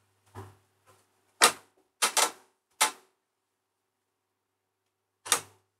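Several short, sharp knocks and clicks at irregular intervals: a loud one about a second and a half in, a quick double knock just after two seconds, another a little before three seconds, and a last one near the end.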